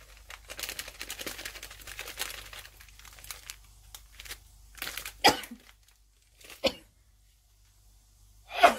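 Foil spice packet of Shan Sindhi biryani masala crinkling as the powder is spooned out of it, then three loud coughs about a second or two apart, the last the loudest, set off by breathing in the chilli-laden spice.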